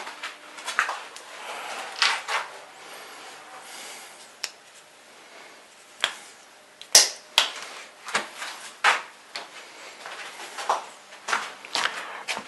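Hand tools working on a length of electrical cable: a series of irregular sharp clicks and snips, the sharpest two about seven seconds in, with rustling as the cable is handled.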